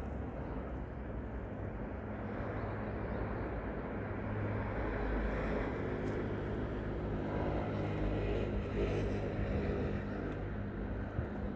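Steady low engine rumble, growing a little louder around the middle of the stretch and then easing off.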